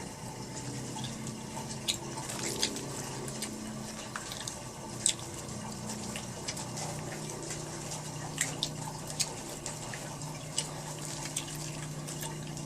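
Water running from a tap into a sink, with scattered short clicks and drips.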